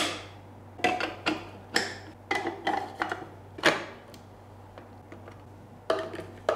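Plastic parts of a Healthtech ZM1516 horizontal single-auger slow juicer being fitted together by hand: the juicing chamber is seated on the motor base and the end cap twisted on. A quick run of sharp plastic clicks and knocks, then a pause of about two seconds, then two more clicks near the end.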